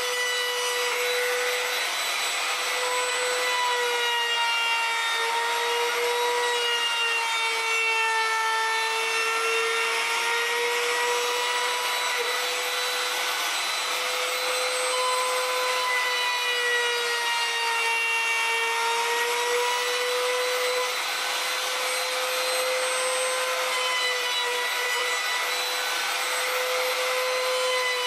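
Compact trim router running at high speed while it cuts along the edges of a pine pallet-wood tray: a steady high motor whine that sags and recovers slightly in pitch as the bit loads, over the hiss of the cut.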